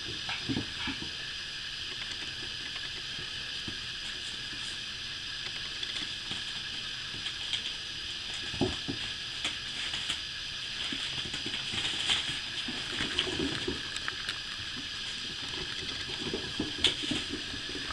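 Four-week-old puppies playing and wrestling on carpet and newspaper: soft scuffling, rustling and small clicks over a steady hiss, with a few brief puppy grumbles in the second half.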